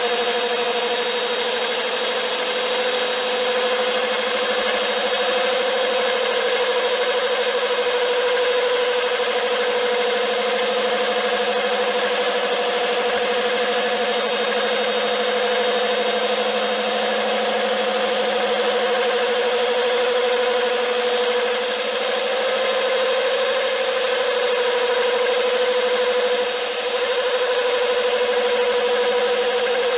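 Pulvex diamond core drill running as it bores through vitrified porcelain paving: a steady motor whine that holds its pitch with a slight waver, with one brief dip near the end.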